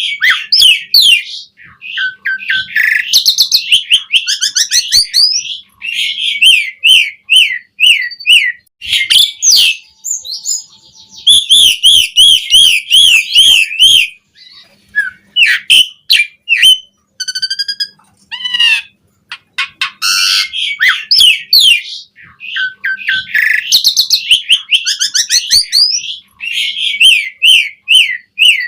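Asian pied starling (jalak suren) singing loudly, a varied run of rapid repeated chirps, whistles and warbling trills with brief pauses between phrases.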